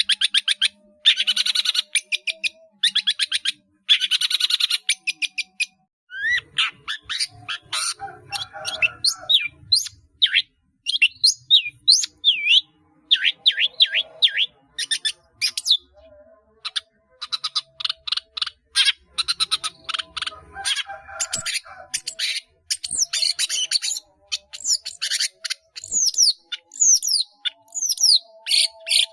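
Long-tailed shrike (cendet) singing a fast, varied song packed with mimicked phrases. It opens with harsh, rasping chatter, and from about six seconds in it runs into quick sharp whistled notes sliding up and down.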